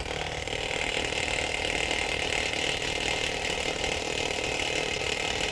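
Milwaukee 1-inch cordless D-handle impact wrench, rated at 1,800 ft-lb, hammering steadily without a break as it drives a large nut down tight on its bolt.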